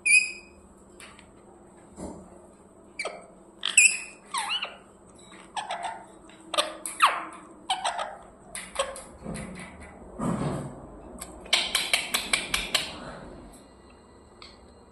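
Pet parrot chirping and squeaking in short separate calls, several falling in pitch. About two-thirds of the way through it breaks into a quick run of rapid chirps.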